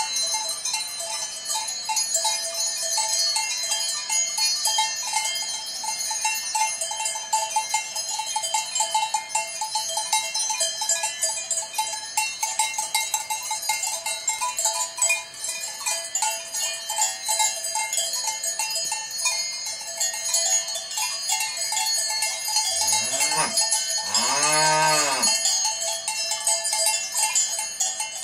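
Many cowbells on grazing cattle clanking continuously and unevenly as the cows move. Near the end a cow moos once, its call rising and then falling over about two seconds.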